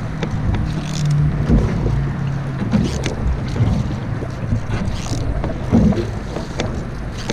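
Single-blade canoe paddle strokes: the blade catches and pulls through calm water every second or two. Wind rumbles on the microphone underneath.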